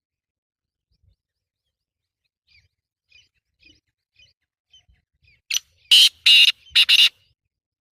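Black francolin calling: a few faint short chirps, then four loud notes in quick succession near the end.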